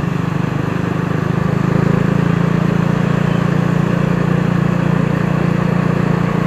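A motorcycle's engine droning steadily while riding along a road, with wind and road noise, getting a little louder about two seconds in.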